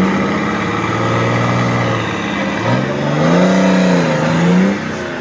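Off-road trophy buggy's engine revving under load as it works in a deep mud pit: a steady rev, then about two and a half seconds in a surge that climbs, holds and falls back, easing off near the end.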